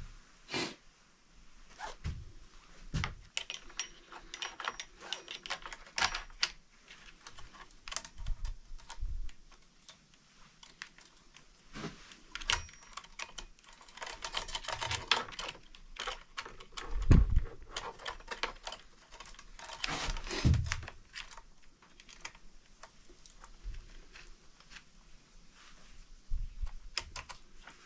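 Steel saw chain clinking and rattling in the hands as it is threaded around the sprocket and onto the bar of a Husqvarna Rancher 455 chainsaw: irregular clicks and jingles, with a couple of duller knocks from the saw being handled.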